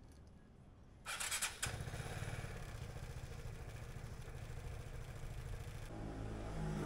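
Vespa GTS 300's single-cylinder four-stroke engine is cranked by its electric starter on a freshly fitted battery. The starter whirs for about half a second about a second in, then the engine catches and settles into a steady idle.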